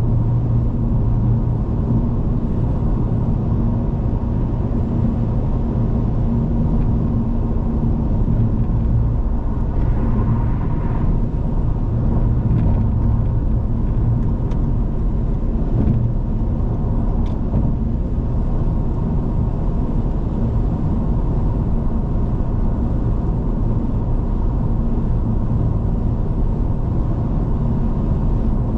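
Car driving at freeway speed: a steady, low rumble of tyres on the road and engine drone, with no change in speed.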